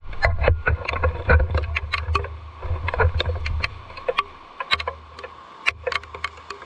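Irregular patter of raindrops striking a hard surface close to the microphone, several sharp drips a second, over a low rumble that dies away about three and a half seconds in.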